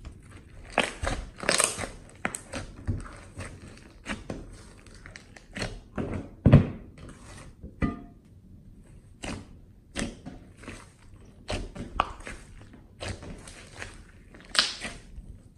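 Glossy slime squeezed and kneaded by hand, giving irregular wet squelches and air pops. The loudest pop comes a little past halfway.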